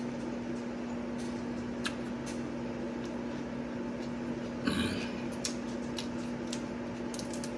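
Electric fan running with a steady hum, with a few faint clicks and one short rustle about two-thirds of the way through.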